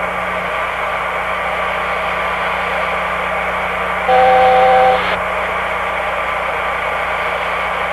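Cockpit voice recorder audio from a Boeing 747 freighter's flight deck: a steady hiss with a low hum. About four seconds in, a louder two-pitched steady tone sounds for about a second and stops.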